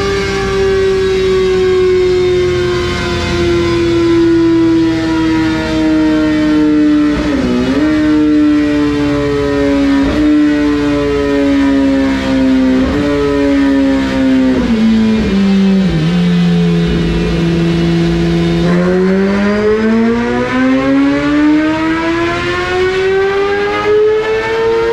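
Suzuki GSX-R1000R inline-four fitted with a Brock's Performance full exhaust, running on a chassis dyno. The revs drop in several short steps, hold low for a few seconds, then climb smoothly and steadily in a full-throttle dyno pull that is still rising at the end.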